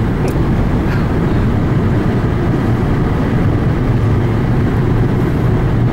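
Car driving at highway speed, about 80 km/h, heard from inside the cabin: steady engine, tyre and road noise as a low, even drone.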